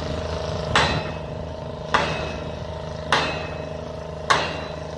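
Pile-driving hammer on a crane-mounted rig striking a pile at a steady pace, about one blow every 1.2 seconds, four blows in all, each with a short ringing tail. Under the blows runs the steady drone of the rig's engine.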